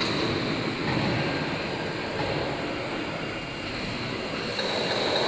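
WMTCNC VMC1580L vertical machining center milling a metal block under flood coolant. The cutting noise mixes with the coolant spray, and a steady high whine over it weakens slightly in the middle and comes back near the end.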